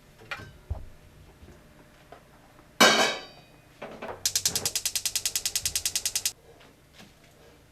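A few light knocks, then a loud sudden clatter with ringing about three seconds in, followed by a rapid mechanical ratcheting of about ten clicks a second that lasts about two seconds and stops abruptly.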